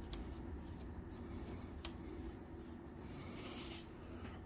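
Faint rubbing on the plastic muzzle of a Nerf rifle as silver weathering powder is worked in by hand, with a couple of light clicks and a soft hiss of rubbing about three seconds in, over a low steady room hum.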